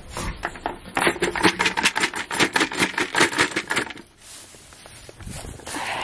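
Grain rattling in a plastic feed bucket, a rapid run of clicks lasting about three seconds, then softer rustling of footsteps in hay.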